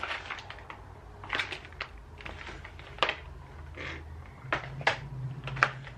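Scattered clicks and rustles of plastic food packaging being handled as groceries are unpacked, over a faint low steady hum.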